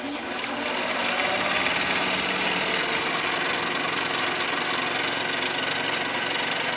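Mini lathe running steadily with a motor and gear whine, its chuck spinning. The sound builds over about the first second after the lathe is switched on.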